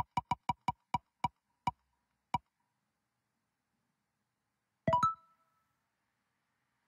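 Digital spinning-wheel picker ticking as it spins, about nine clicks slowing down until they stop, then a short electronic chime as it lands on its choice.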